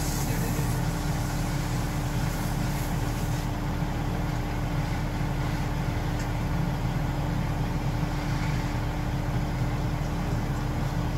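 Ready-mix concrete truck's diesel engine running steadily, with a constant hum.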